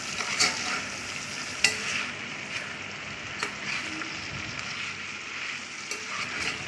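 Sliced bitter gourd sizzling as it is sautéed in plenty of oil, no water, while a spatula stirs it around the pan, with a few sharp knocks of the spatula against the pan.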